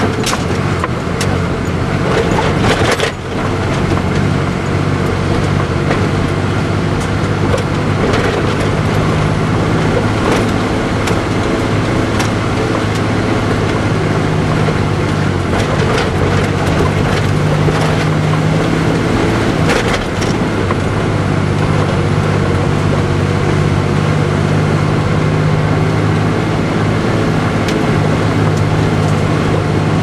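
Engine of a six-wheel propane bobtail tanker truck running steadily as it climbs a rough gravel road, heard from inside the cab, with frequent rattles and knocks from the bumpy road. The engine sound dips briefly twice, about three seconds and twenty seconds in.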